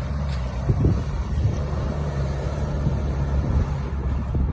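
Off-road 4x4 engine running under load as it pushes through a deep water crossing, a steady low drone with a few knocks mixed in.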